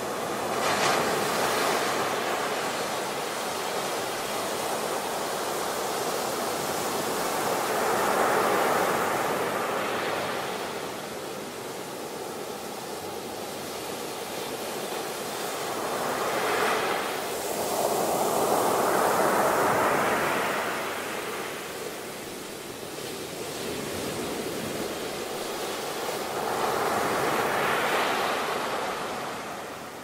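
Ocean surf on a beach: waves wash in and draw back as a rushing noise that swells and fades every several seconds, with louder surges a little over a quarter of the way in, around the middle, and near the end.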